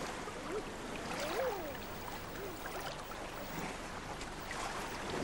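Choppy sea water rushing and splashing around a flock of common eiders, with three short cooing calls from eider drakes, each rising then falling in pitch; the loudest comes about a second and a half in.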